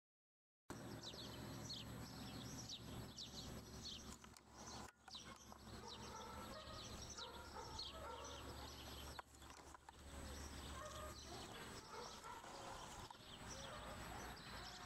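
Birds chirping with many short, quick calls over a low, steady background rumble. The sound cuts in from silence just under a second in.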